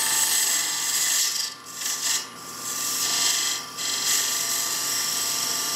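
Point tool cutting a spinning wooden tenon on a wood lathe, a steady high hissing scrape. It breaks off briefly three times in the first two-thirds as the tool comes off the wood.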